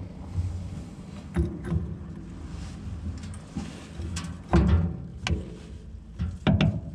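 Short metal knocks and clinks as a cardan-shaft yoke is handled and fitted onto a splined shaft with a bevel gear, over a low steady hum; the loudest knock comes about four and a half seconds in, with two more near the end.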